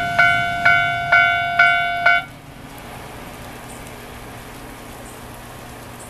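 Japanese railway level-crossing warning bell ringing in a steady beat of about two strikes a second, cutting off about two seconds in as the crossing clears behind a passing train. A steady hiss remains.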